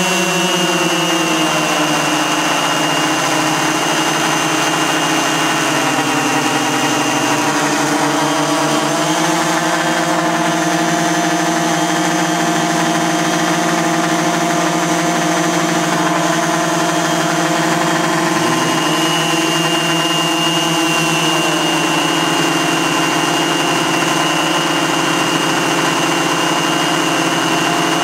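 Piston engines of a large radio-controlled Lockheed Super Constellation model running at idle together, several engine tones at once, with their pitch shifting a few times: around a quarter of the way in, and again about two-thirds in.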